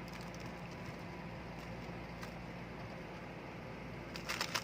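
Rubik's cube being turned through an OLL algorithm: scattered faint clicks of the layers turning, then a quick cluster of louder clicks near the end, over a steady room hiss.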